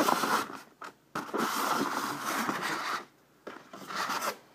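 Polystyrene foam packaging rubbing and scraping against a cardboard box as the foam insert is slid out, in three scraping stretches with short pauses between them, the middle one the longest.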